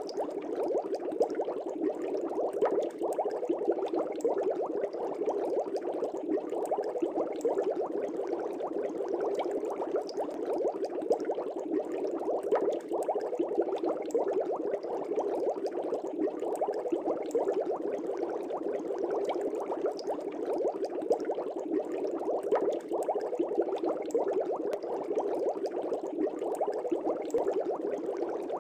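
Air bubbles streaming steadily through a fish tank's water: a dense, even bubbling full of tiny pops that does not change.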